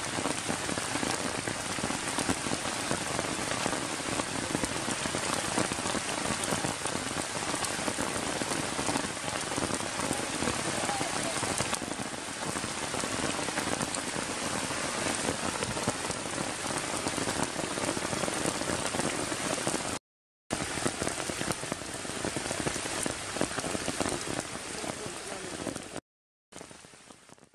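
Steady rain falling on wet grass and puddled ground, a dense even patter. It drops out to silence twice for a moment in the last third, and is quieter after the second break.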